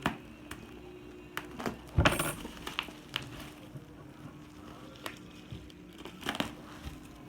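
Small hard objects being handled and set down: a string of light clicks and clinks, with one louder knock about two seconds in.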